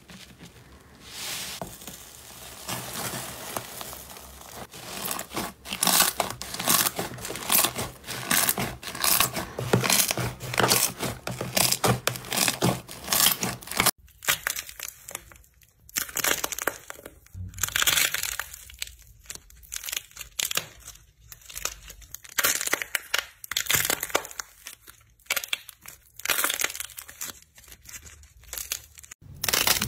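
Paper sheets laid over slime crinkling and rustling steadily under pressing hands. After a sudden cut, a dried clay coating on a soft ball cracks and crunches in sharp snaps, with short quiet pauses between squeezes.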